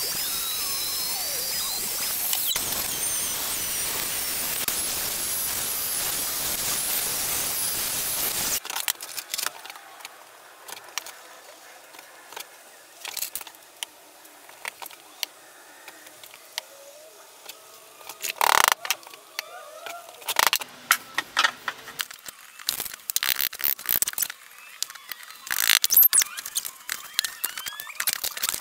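Festool Domino joiner running steadily with a high whine, along with its dust extraction, while cutting mortises for floating tenons. It shuts off abruptly about eight seconds in. Scattered wooden clicks and knocks follow as the tenons and boards are handled and fitted.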